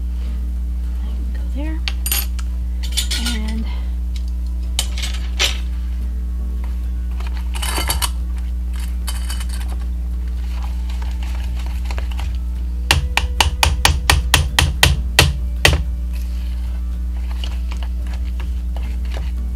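Spatula stirring cookie dough in a small stainless steel mixing bowl, with a few scattered clinks, then a quick run of about fifteen taps against the metal bowl, some five a second, about thirteen seconds in. A steady low hum lies under it all.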